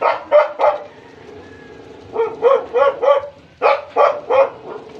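A dog barking: about ten short barks in three quick bouts, three, then four, then three.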